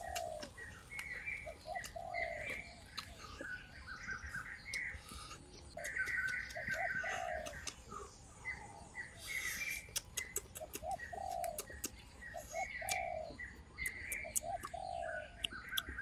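A dove cooing: a phrase of two or three short low notes ending in a longer falling one, repeated every few seconds. Other small birds chirp higher up, and there are scattered sharp clicks.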